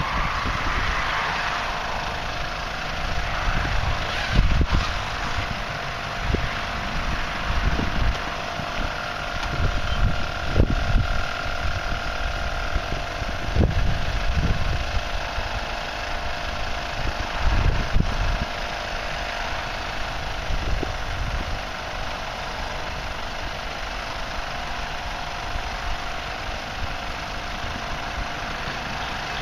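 Twin 12V electric air compressors running steadily with a constant hum, inflating the air beams of a Karsten 350 inflatable tent. Gusts of wind rumble on the microphone through the first two-thirds.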